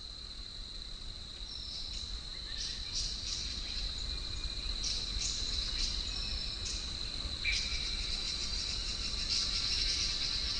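Forest ambience: insects buzzing in one steady high drone, with short bird chirps here and there and a low wind rumble underneath. The sound fades in over the first few seconds.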